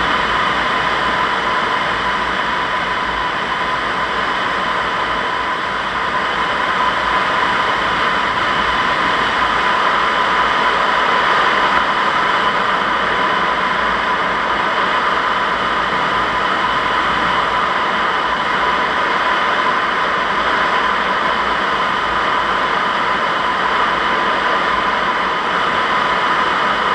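Steady rush of air over the canopy of a Zugvogel 3a glider in flight, heard from inside the cockpit, with a steady high tone running through it.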